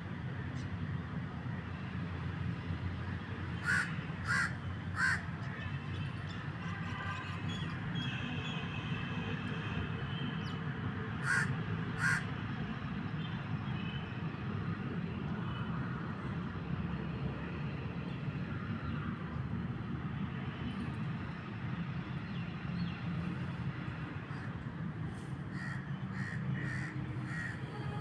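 Crows cawing outdoors: three harsh caws about four seconds in, two more near twelve seconds, and a quick run of several near the end, over a steady low background hum.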